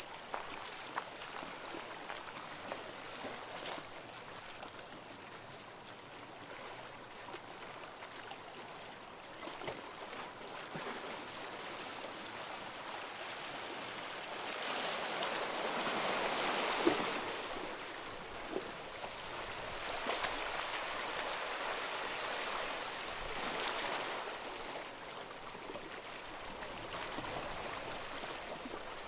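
Small waves washing against the shore, a hiss of moving water that swells louder three times in the second half as the waves surge in.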